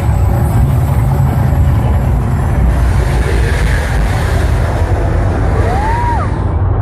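Deep, steady rumbling from the Mirage volcano show. A hiss joins it about three seconds in and cuts off suddenly near the end, and a brief whistle rises and falls just before.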